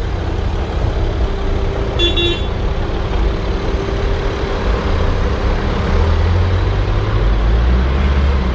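Mercedes-Benz G-Class engine idling with a steady low rumble that grows louder about six seconds in. A short car horn toot sounds about two seconds in.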